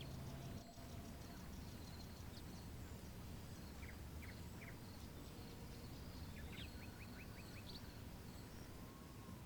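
Faint outdoor ambience: a steady low rumble with short high chirps, three about four seconds in and a quick run of about six near seven seconds in.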